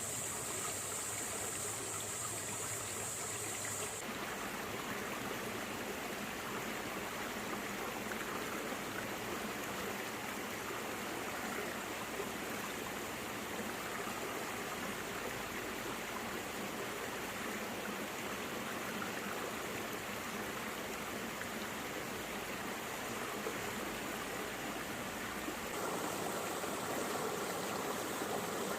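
A small stream running and trickling over rocks and stones, a steady rush of water. Its tone shifts about four seconds in and again near the end.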